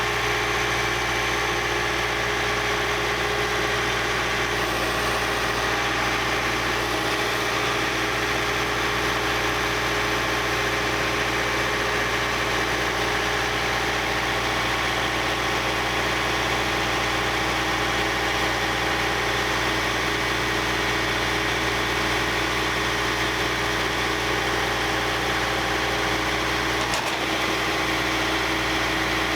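Sawmill engine running steadily at constant speed while logs are milled into lumber.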